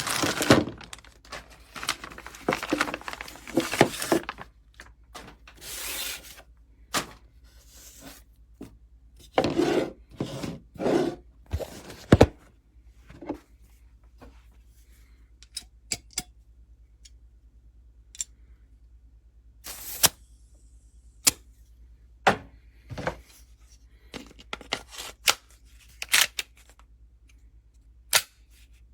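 Handling noise from a Glock 18C gas blowback airsoft pistol: stretches of scraping and rubbing in the first half, then a series of separate sharp clicks and knocks.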